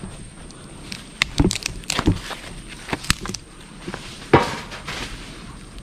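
A run of irregular snaps, crackles and knocks over a low rustle, the loudest a single sharp knock a little past four seconds in.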